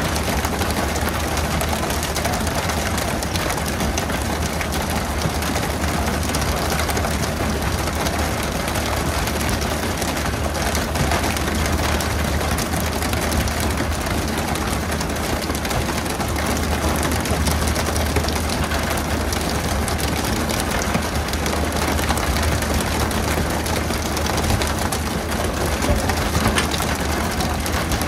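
Steady low drone of a fishing boat's engine running, under a constant hiss of rushing water.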